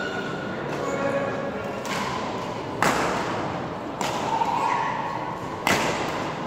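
Badminton rackets striking a shuttlecock during a rally: three sharp smacks, one to two seconds apart.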